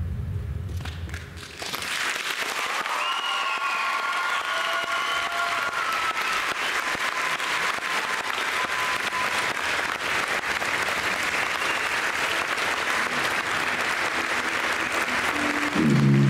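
Audience applauding steadily, breaking out about a second and a half in as a low gong-like tone fades.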